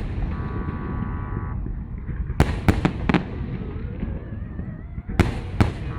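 Fireworks shells bursting in a salute: sharp bangs in a quick run of four about two and a half seconds in and a pair about five seconds in, over a steady low rumble. A brief steady high tone sounds near the start and a faint wavering rising whistle in the middle.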